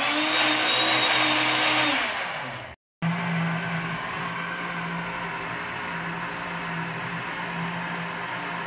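Countertop blender motor running at full speed, blending açaí with banana, apple and condensed milk into a smooth purple drink. It cuts out for a moment about three seconds in, then runs on steadily, a little quieter and lower in pitch.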